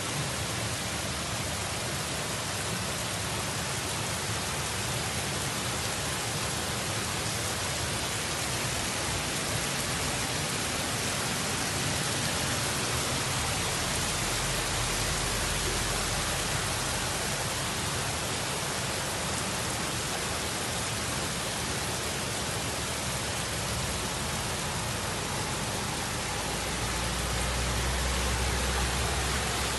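Torrential rain pouring down in a steady, even hiss. A low rumble comes in about halfway through and again, louder, near the end as cars drive through the flooded road.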